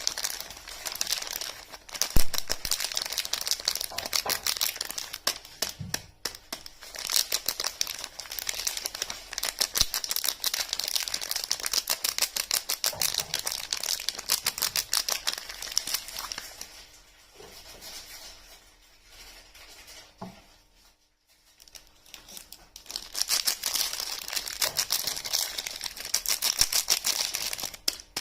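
Soap packaging being handled and unwrapped: dense, rapid crinkling of wrapper with tearing, and a single knock about two seconds in. The crinkling eases off past the middle and picks up again near the end.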